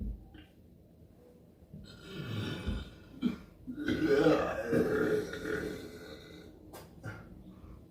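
A person burping: a shorter burp about two seconds in, then a long, loud burp from about four seconds in.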